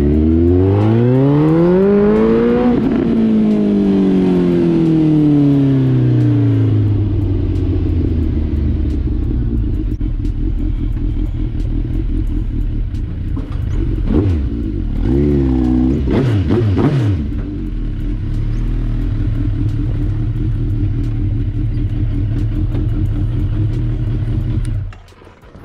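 Suzuki Bandit 1250's inline-four engine accelerating, its pitch rising for the first few seconds and then falling as the bike slows. It then runs low and steady, is revved quickly twice around the middle, and stops near the end.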